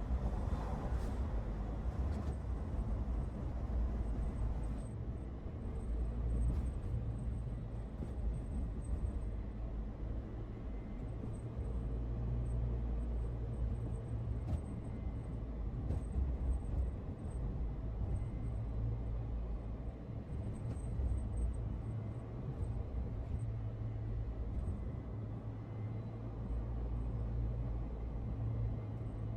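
Car driving at speed, heard from inside: a steady low drone of engine and road noise.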